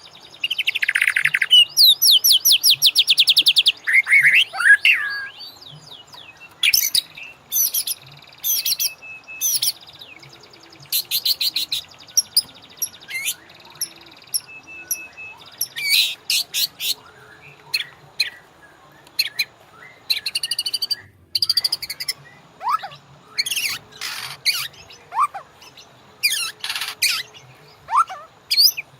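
White-rumped shama (murai batu) singing a varied song: fast rattling trills in the first few seconds, then sharp repeated notes and whistled slurs broken by short pauses.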